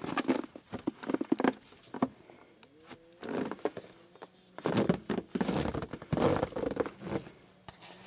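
Footsteps crunching in snow, with a few thumps, in irregular bursts: a run in the first two seconds, another a little after three seconds, and a longer one from about five to seven seconds.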